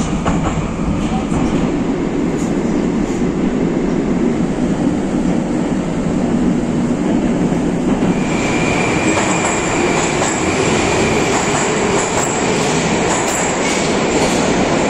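Moscow Metro train running, heard from inside the car: a steady rumble of wheels on rail with some clickety-clack and wheel squeal. About eight seconds in the sound changes and a steady high whine joins the rumble.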